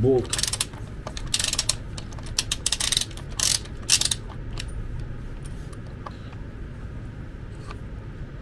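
Ratchet wrench with a 13 mm socket clicking in quick bursts as it backs out the wheel-retaining bolt on an electric wheelchair's gear-motor hub. The clicking stops about four seconds in, leaving only a few scattered clicks.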